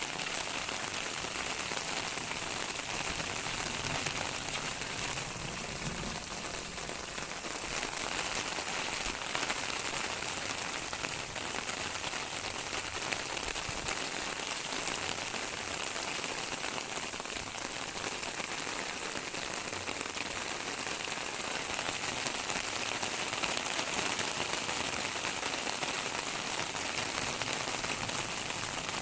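Steady rain falling and pattering on surfaces, a continuous even hiss dense with fine drop ticks.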